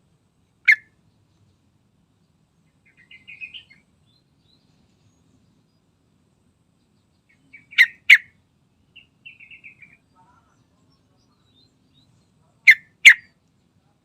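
Sooty-headed bulbul (trucukan) calling. A single sharp, loud note comes about a second in, then two quick sharp notes about eight seconds in and again about thirteen seconds in, with short, softer chattering phrases between them.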